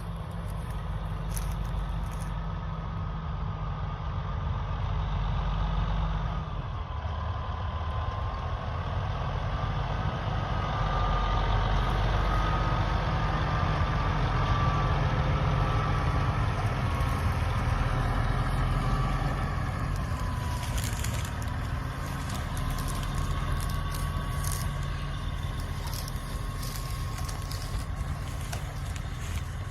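Heavy vehicle engine running steadily with a deep rumble and a faint whine that wavers in pitch.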